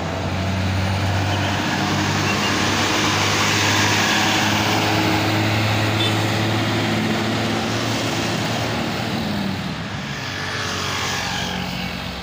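Diesel engine of a medium tour bus pulling up a steep slope, running loud and steady at an even pitch, then fading as the bus moves away near the end.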